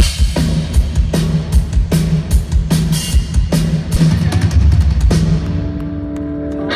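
Rock band's drum kit played live, a driving beat of kick and snare hits with cymbals as the song is restarted. A little after five seconds in the drum hits stop and held notes ring on.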